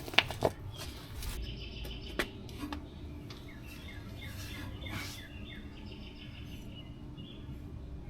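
A few sharp clicks and knocks in the first couple of seconds, then small birds chirping faintly and repeatedly over a low steady hum.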